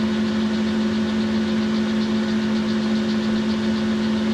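Boxford centre lathe running at a steady speed: a constant hum with a low, unchanging drone. The spindle is turning a small aluminium workpiece that is being hand-polished with a cloth.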